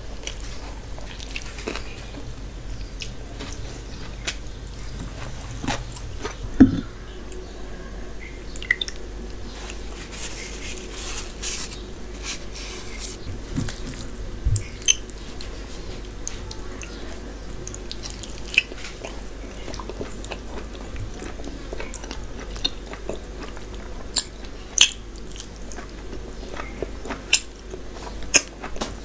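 Close-up eating sounds of a person eating rice with mutton curry by hand: chewing, lip smacks and wet clicks coming irregularly, some sharper than others.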